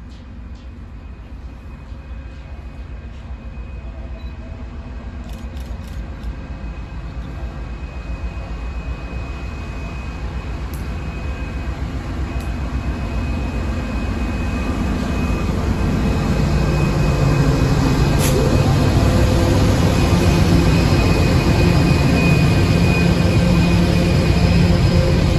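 Two Pacific National diesel-electric locomotives hauling a container freight train, approaching and passing close by. The engine and wheel rumble grows steadily louder over the first fifteen seconds or so, then holds as a steady rumble and rattle while the container wagons roll past.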